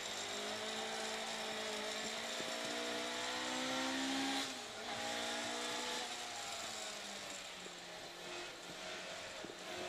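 Ford Escort Mk2's BDG four-cylinder rally engine heard from inside the cabin, revving up steadily under acceleration. About four and a half seconds in the revs drop sharply, then the engine runs on at lower revs, rising and falling gently.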